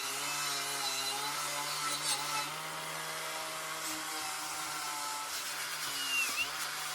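Power tool running steadily with a scratchy hiss as it cleans rust off old steel pedals; its pitch dips sharply for a moment about six seconds in.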